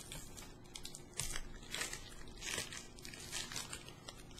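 Foil wrapper of a Pokémon card booster pack crinkling in irregular bursts as it is handled and torn open by hand.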